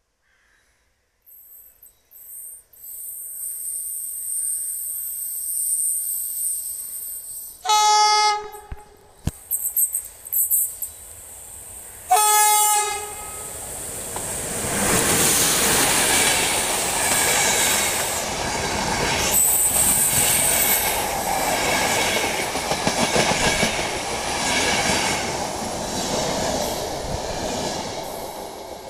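CFR class 060-EA electric locomotive approaching with a rising high whine, sounding two horn blasts, the first about a second long, then passing at speed hauling passenger coaches: a loud rush of noise with rhythmic wheel clatter over the rail joints, fading near the end.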